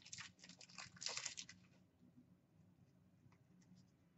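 Faint rustling and light clicks of trading cards being handled during the first second and a half, then near silence with a few faint ticks.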